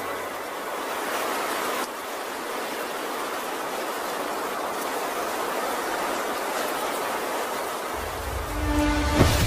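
A steady rushing noise with no tone in it, from an anime scene's soundtrack. About eight seconds in a deep bass swells in, and a single sharp hit sounds just before the end.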